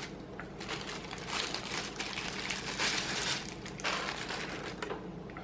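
Packaging crinkling and rustling as the keyboard's palm rest is handled and unwrapped, with small scattered ticks.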